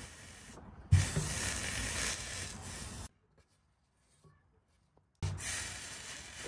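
Hot household steam iron pressed on a wet paper towel over a cedar board, hissing and sizzling as the water turns to steam to swell a dent out of the wood. A sharp knock about a second in, then the hiss breaks off suddenly into near silence and comes back near the end.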